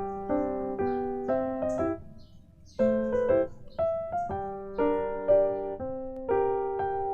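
Background piano music: a gentle melody of struck notes that each fade, with a short pause about two seconds in.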